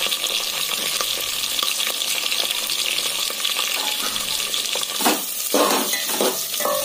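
Sliced onions sizzling in hot mustard oil in a metal pot. About five seconds in, a spatula starts stirring them, scraping against the pot.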